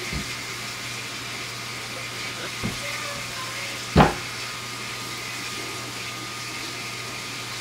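A steady low hum with a few light knocks, then about four seconds in a stainless steel pot is set down on a countertop with a single loud thump.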